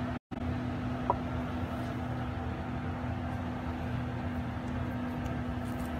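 Steady machine hum with a constant low drone, the sound cutting out for an instant just after the start, and one short light tick about a second in.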